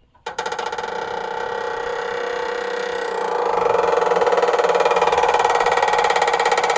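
A steady machine drone with a buzzing, fixed pitch. It starts suddenly and grows louder about three seconds in.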